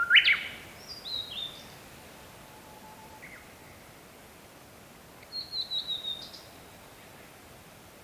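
Japanese bush warbler singing. The long level whistle ends in a sharp upward flourish, then a few falling high notes follow, the 'hoo… hokekyo' song. About five and a half seconds in there is a quick run of about six high chirps.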